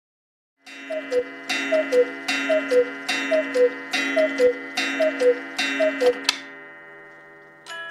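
Black Forest cuckoo clock calling the hour: the two-note falling cuckoo call, about seven times, each call with a gong strike whose ringing fades after the last one. A tinkling music-box tune starts just before the end.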